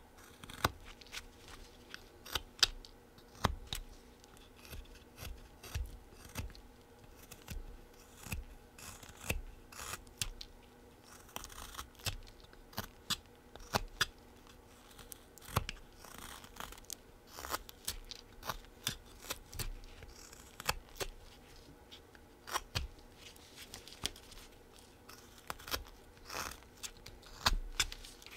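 Flexcut Whittlin' Jack folding knife paring shavings off a small wooden blank in short, crisp cuts, about one or two a second at an uneven pace.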